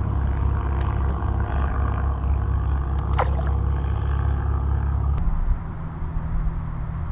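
Wind buffeting the microphone: a steady low rumble that drops away about five seconds in as the gust eases.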